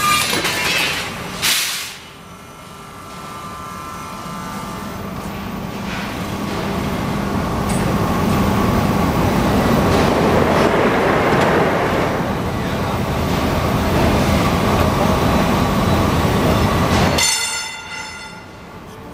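WMW 10-tonne draw bench running. A sharp clunk about a second and a half in is followed by a steady machine noise that grows louder over several seconds, holds, and stops suddenly near the end.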